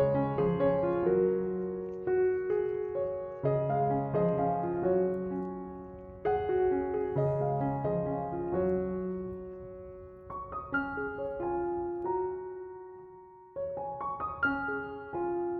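Background solo piano music: a gentle piece of slow chords and a melody, the notes ringing and fading, with a sparser, higher passage in the second half.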